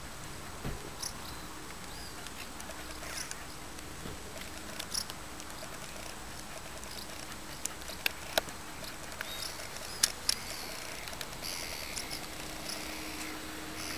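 Outdoor ambience: a steady low hiss with scattered small sharp clicks and a few faint high chirps.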